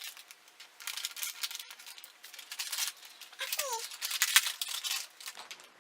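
Packaging of a toy mystery pack crinkling as it is opened by hand, in a quick, irregular run of crackles.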